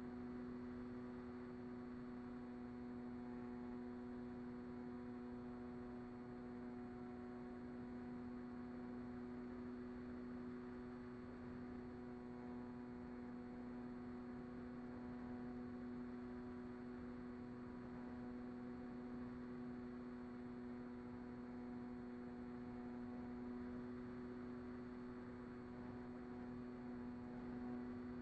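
A steady, unchanging hum with several higher overtones on the audio of a Mini Talon RC plane's onboard camera in cruising flight.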